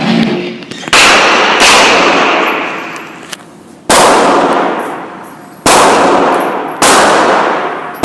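Gunshots echoing in an indoor shooting range: five sharp reports at irregular intervals, each ringing off slowly in the enclosed range.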